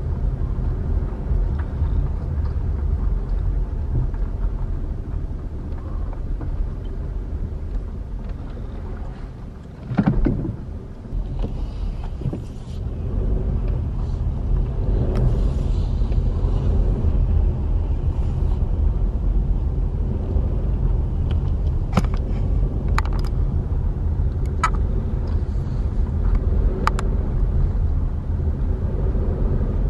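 Car driving slowly, heard from inside the cabin: a steady low engine and road rumble. About ten seconds in it dips briefly, then comes a loud thump, and a few sharp clicks follow near the end.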